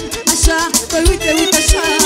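Live Romanian wedding band playing a manele tune: a wavering, heavily ornamented melody over a steady kick-drum beat of just under two hits a second.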